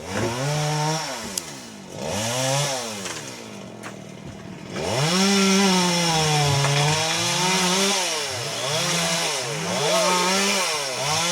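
Chainsaw engine running and revving up and down. It eases back to a lower, quieter speed from about two to five seconds in, is held at high revs after that, and then surges up and down several times near the end.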